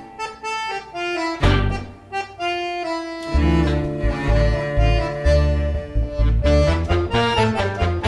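Instrumental background music: a melody over a bass line, the bass coming in about three seconds in.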